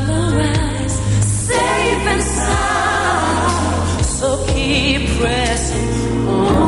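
A woman singing a pop ballad live into a handheld microphone, her voice held and wavering in long notes over a band's steady bass and keys. Near the end the sound changes abruptly where one performance is spliced to another.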